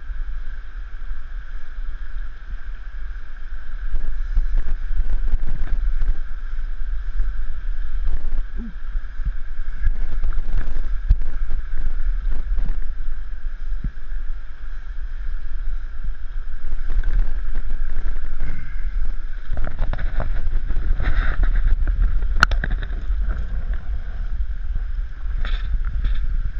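Steady low rumble and hum of a small boat on a river, with wind on the microphone. From about twenty seconds in come short splashes and knocks as a brook trout is scooped into a landing net.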